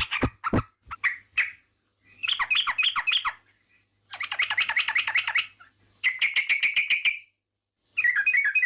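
Yellow-vented bulbul (trucukan) singing: short bursts of rapid chattering notes, about one phrase every two seconds with brief silences between.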